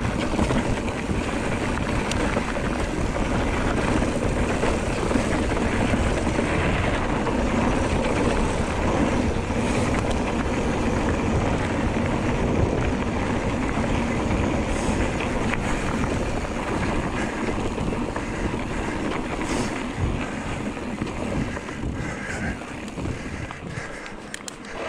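Electric mountain bike ridden fast along a dirt trail: wind buffeting the microphone over the rumble of tyres on the trail surface, with the bike rattling over bumps. The noise is loud and steady, easing off right at the end.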